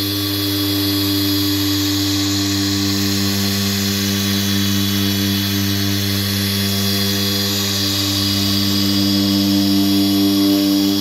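Ryobi cordless dual-action polisher running steadily at polishing speed, a continuous motor hum.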